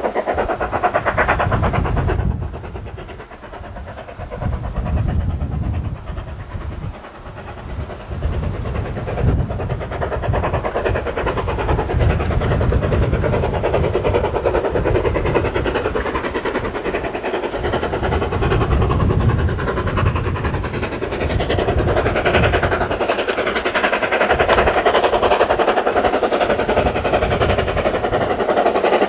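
Steam locomotive hauling a train of coaches as it approaches, its working sound building louder over the second half.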